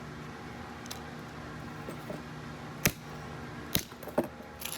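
Broken metal doorknob and lock pieces clinking as they are tossed onto a scrap pile: a few light metallic clinks, with two sharper ones about three seconds in and a second later, over a steady low hum.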